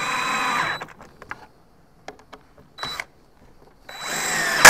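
Cordless drill driving screws through pocket holes into plywood: one run of the motor ends about a second in, a few small clicks and knocks follow, and a second run starts near the end and finishes with a sharp crack.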